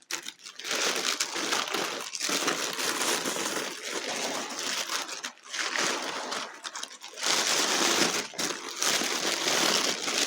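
Packing paper being crumpled and pulled off a wrapped crystal: continuous crinkling and rustling with a few brief pauses.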